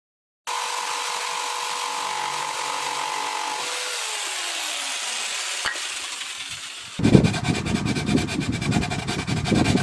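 Electric jigsaw cutting wooden boards. It runs with a steady whine that slides down in pitch about four seconds in, then from about seven seconds comes the louder, rapid chatter of the reciprocating blade through the wood.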